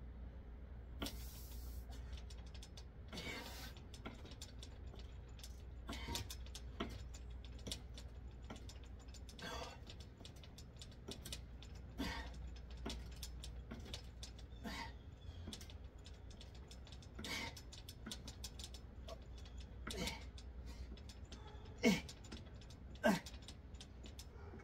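A man doing bodyweight dips on a freestanding dip station: a short sharp sound with each rep, every two to three seconds, and two short grunts near the end, over a low steady rumble.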